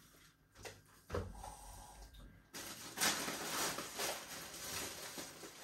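Plastic grocery bag and produce wrapping rustling and crinkling as groceries are handled. It starts abruptly about two and a half seconds in, after a few faint knocks.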